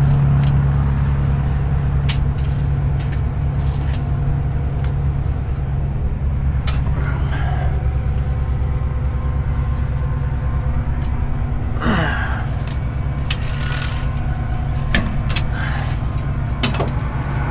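Heavy truck diesel engine running steadily, with a few sharp metal clicks and clanks from the tow truck's wheel-lift being set under the front axle.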